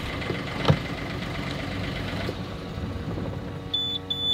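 A sailboat's inboard diesel engine idling steadily. Near the end the engine panel's alarm buzzer starts sounding in short, high, steady beeps as a hand works the panel to stop the engine.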